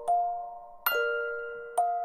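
A slow chime melody of struck, bell-like notes: three notes about a second apart, each ringing out and fading before the next.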